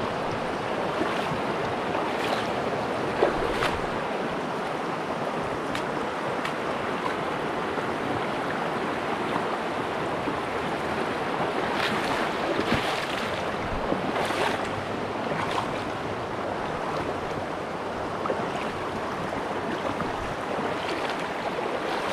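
Shallow river water rushing steadily over rocks in a riffle, with a few brief splashes and knocks, loudest about three seconds in and again around twelve to fifteen seconds in.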